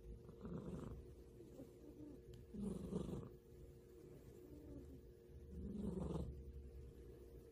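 A sleeping domestic cat snoring softly, one snore about every three seconds.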